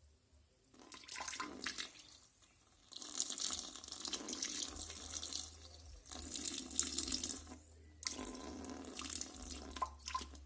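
Water running from a tap into a sink in four spells, starting about a second in and briefly dropping away three times.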